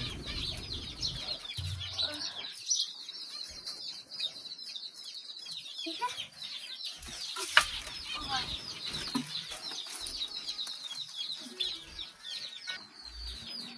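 Mixed aviary birds, cockatiels, finches and java sparrows, chirping and calling in a dense, continuous chatter. A sharp knock comes about seven and a half seconds in.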